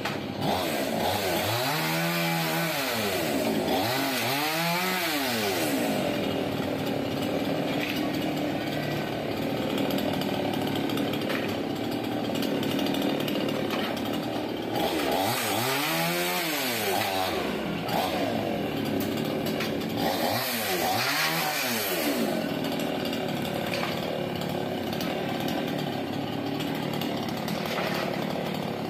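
Petrol chainsaw running steadily while cutting wood. Its engine revs up and falls back four times, near the start, about four seconds in, and twice more in the middle.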